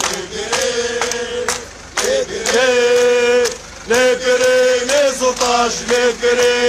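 Crowd of marching protesters chanting slogans in unison: rhythmic phrases with long held notes, and sharp beats keeping time.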